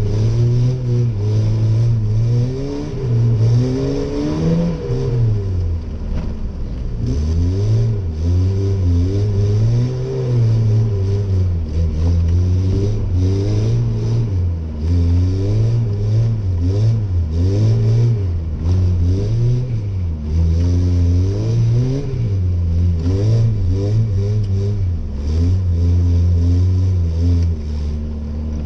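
Chevy S10 pickup's engine heard from inside the cab, revving up and dropping back again and again, about every one to two seconds, as the throttle is worked while drifting.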